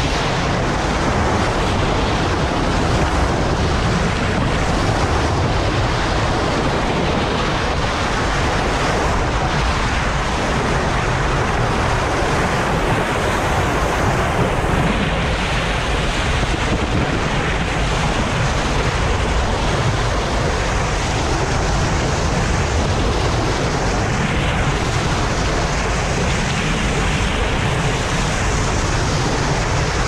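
Bow wave of a moving boat rushing and splashing along the hull in a steady, even wash, with wind buffeting the microphone.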